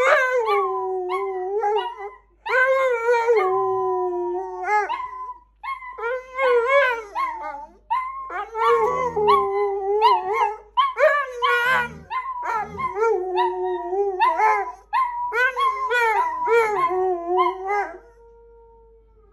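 A dog howling in long, wavering howls broken by short pauses, stopping about a second before the end.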